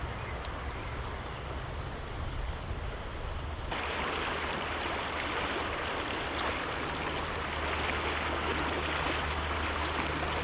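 Creek water rushing steadily, turning louder and brighter about four seconds in.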